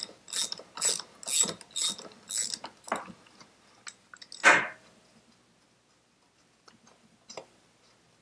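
Socket ratchet clicking in short strokes about twice a second as a bolt is wound out. It stops about three seconds in, followed by a single louder metal knock and a few faint taps.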